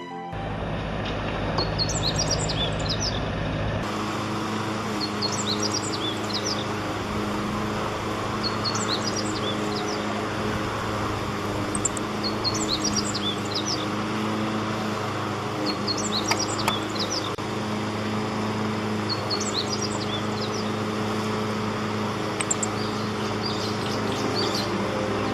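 A songbird singing the same short, high phrase of several quick notes about every three and a half seconds, over a steady low mechanical hum.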